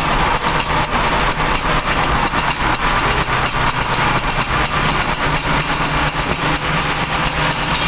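Music with a quick, even beat over the steady drone of a car cruising at highway speed, heard from inside the cabin.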